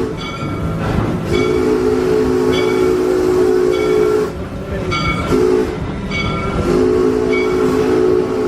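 Train ride's locomotive whistle sounding a low chord of several notes in two long blasts, the second still going at the end. A bell rings steadily over it.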